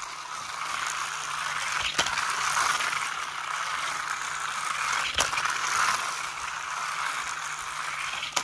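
Battery-powered Glow Tracks toy race car running around its flexible plastic track: a steady whirring rattle of the small motor and wheels clattering over the track pieces, with two sharp clicks.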